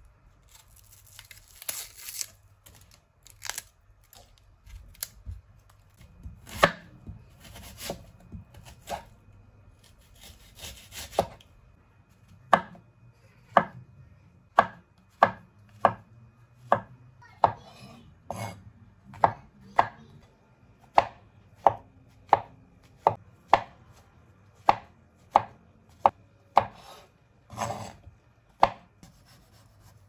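Chef's knife cutting vegetables on a bamboo cutting board. First comes some rustling and a few irregular cuts, then from about twelve seconds in a steady run of sharp knife knocks on the board, about one and a half a second, as mushrooms are sliced.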